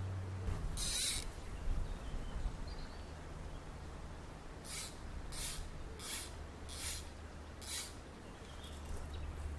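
Fly line being worked for a cast: one short hissing swish about a second in, then a run of five more, roughly two-thirds of a second apart, over a faint low hum.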